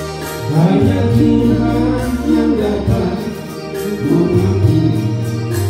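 A man singing into a microphone, amplified through a PA, with instrumental accompaniment; he holds long notes.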